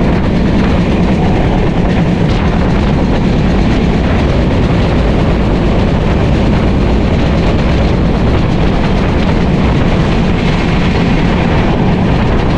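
Passenger train running along the line, heard from inside a carriage: a steady noise of the wheels on the rails and the moving coach.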